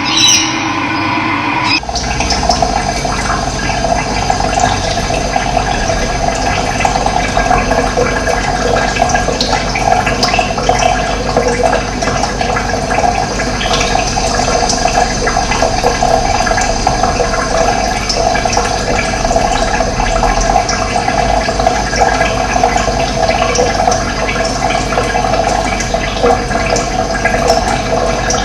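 Running water: a steady rushing flow that comes in abruptly about two seconds in, replacing a different sound with high steady tones.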